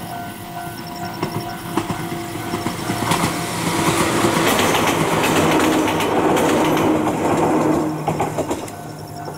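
Ohmi Railway 800-series electric train passing: wheels clack over the rail joints and a steady motor hum swells to its loudest about four to seven seconds in, then fades as it moves away.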